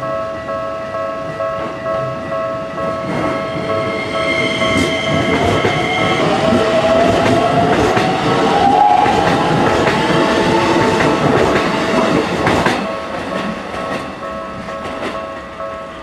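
A level-crossing warning bell rings steadily as a Keikyu 1000 series electric train passes close by. The train's traction motors whine, rising in pitch between about five and eleven seconds in as it accelerates, and its wheels clatter over the rail joints. The passing noise dies away after about thirteen seconds, leaving the bell.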